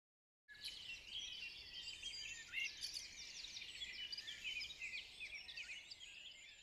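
Several songbirds singing at once, a dense chorus of quick chirps and short whistling phrases that starts about half a second in.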